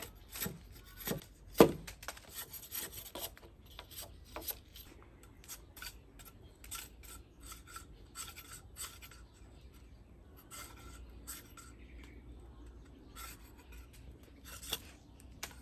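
Machete blade scraping along a thin cane strip: short, irregular rasping strokes, with one sharper, louder stroke about a second and a half in and a quieter stretch midway before the strokes pick up again.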